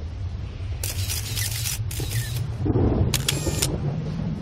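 Instrumental intro of a sped-up (nightcore) electronic pop track: a steady deep bass drone with three short bursts of hissing noise about a second in, at two seconds, and just after three seconds.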